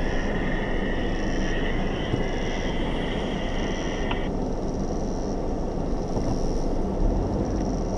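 Vehicle engine idling, heard from inside the cabin as a steady low rumble. A high steady tone over it cuts off suddenly about four seconds in.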